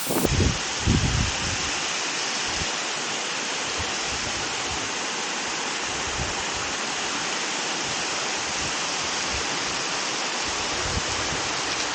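Steady rushing of river water and a waterfall, an even unbroken roar. A few low thumps of wind or handling on the microphone come in the first second.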